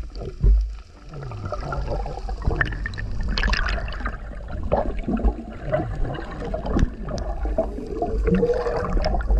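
Water gurgling and sloshing as heard through a camera held underwater, muffled, with a deep rumble and scattered short crackles.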